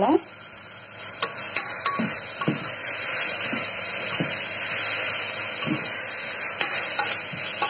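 Onions and ginger-garlic paste frying in oil in a pressure cooker, with a steady sizzle, while a metal ladle stirs them, scraping and clicking irregularly against the pot.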